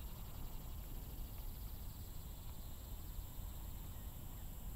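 Quiet open-air background: an uneven low rumble of wind on the microphone under a faint, steady high-pitched hiss.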